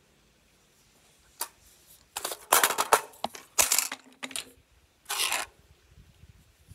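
AR-style 50 Beowulf rifle being handled: a sharp click, then a run of metal clacks and scrapes as the magazine and action are worked. The rounds are not feeding from the magazine.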